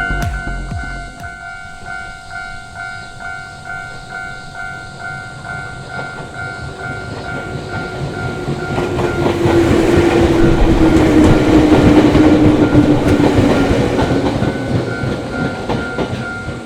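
Japanese level-crossing warning bell ringing steadily at about two strikes a second, while an electric train on the Nagareyama Line passes over the crossing. The train's rumble grows to a loud peak a little past the middle, then fades near the end, with a humming tone that drops slightly in pitch as it goes by.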